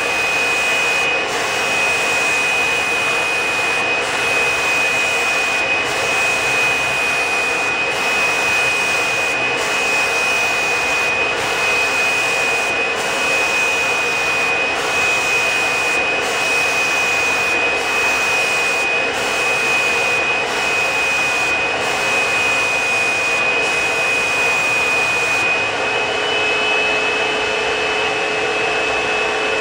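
Fuji Semi-PRO 2 HVLP turbine running, a steady high whine over a rush of air, while the spray gun sprays paint. Near the end the whine steps slightly higher.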